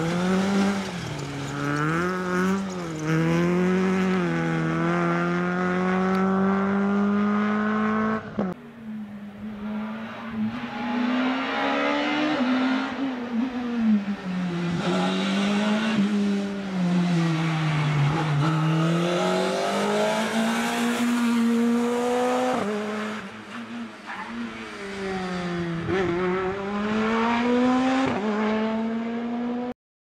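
Rally car engines at full throttle. First a Citroën Saxo rally car revs up steadily through the gears. After a sudden cut, a Škoda Fabia rally car's revs climb and drop again and again with gearshifts and lifts, until the sound cuts off abruptly near the end.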